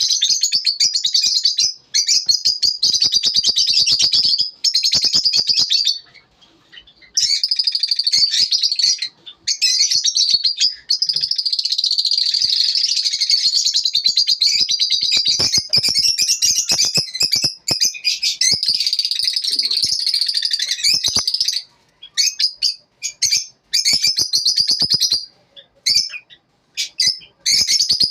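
Lovebirds chirping: a fast, shrill, nearly continuous chatter that stops briefly a few times.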